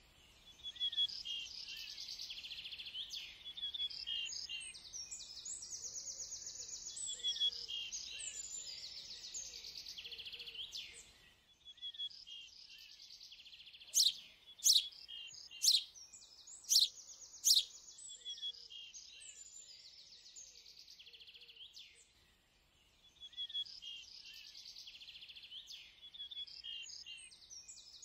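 Small birds chirping and trilling in a busy chorus. Midway come five sharp snips of scissors cutting through a plastic bag, spread over about three and a half seconds, and these are the loudest sounds.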